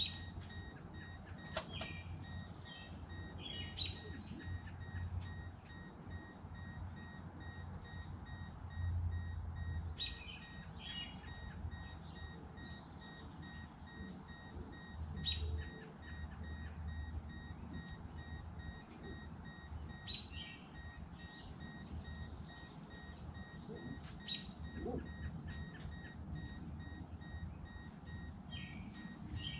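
A car's warning chime beeps rapidly and steadily while the doors stand open. A bird calls briefly every four to five seconds over a low steady hum.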